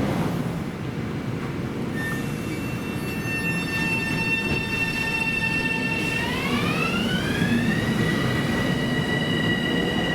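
Long Island Rail Road electric train running by with a heavy rumble, under a high whine of several tones that holds steady, then rises in pitch about six seconds in and levels off, typical of an electric train's traction motors picking up speed.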